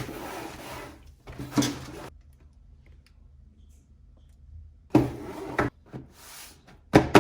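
A sneaker box and its packaging being handled: short bursts of rubbing and rustling, each starting with a knock, with a quiet stretch of about three seconds in the middle.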